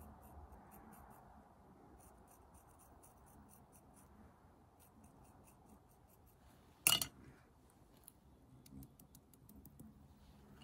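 A pointed tool scoring the surface of soft clay: a fast run of faint scratches as the clay is roughened for joining. One sharp click stands out about seven seconds in.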